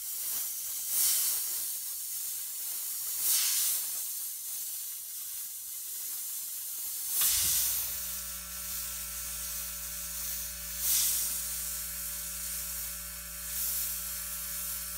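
Iwata Eclipse BCS airbrush hissing steadily as it sprays white paint in short tracing strokes, with five louder puffs of air as the trigger is pulled back further. Just over seven seconds in, a low steady hum starts and keeps going: the Sil-Air 50-24 compressor cutting in.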